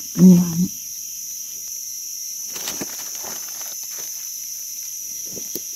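Forest insects droning steadily at a high pitch, with faint rustling of dry leaf litter as gloved hands dig around a mushroom with a knife. A brief low voiced sound comes just after the start.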